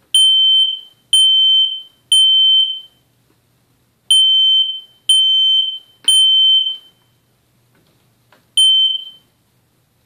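Kidde i12060 smoke alarm sounding its test alarm while its test button is held in: loud, high-pitched beeps in the temporal-three pattern, three beeps a second apart, a pause, three more, and then one last beep near the end.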